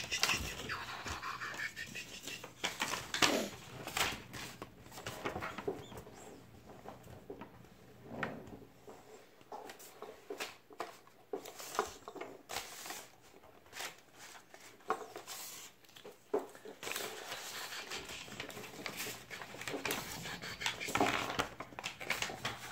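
Small scattered clicks and knocks of a plastic Transformers Titans Return Preceptor action figure being handled, its parts folded and snapped into place while it is transformed.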